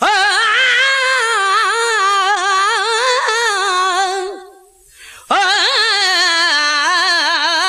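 Sindhi naat sung by a solo voice without instruments: long held, wavering melodic phrases, broken by a short pause about halfway through.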